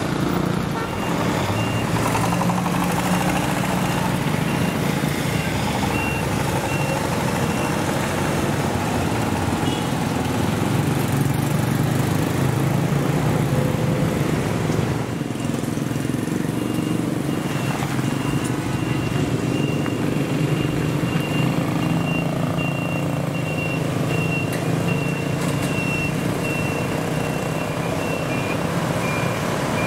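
Street traffic with the engines of a lorry, a small farm tractor-trailer and motorcycles running and passing. The engine hum is steadiest in the second half. A thin, high, broken beeping tone sounds through long stretches.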